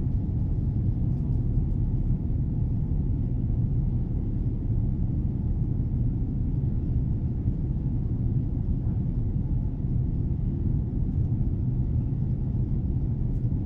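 Steady low rumble of engine and airflow noise inside the cabin of a Boeing 787 Dreamliner climbing out after takeoff.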